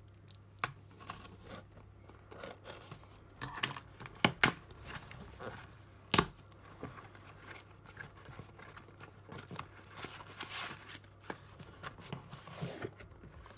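A cardboard shipping box being opened by hand: packing tape slit with a blade and torn away, and cardboard rustling, scraping and tearing in irregular bursts. A few sharp snaps are loudest about four and six seconds in.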